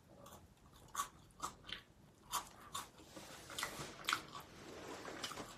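A person chewing a crunchy snack with the mouth close to the microphone: a run of short, irregular crunches, about seven in all.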